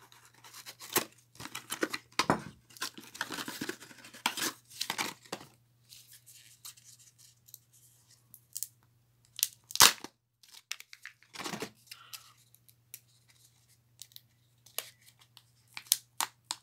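Kinder Joy packaging being opened by hand: the cardboard box pulled open, then the egg's foil wrapper torn and crinkled off and the foil seal peeled from the plastic egg, in repeated short bursts of tearing and crinkling. A sharp snap about ten seconds in is the loudest sound.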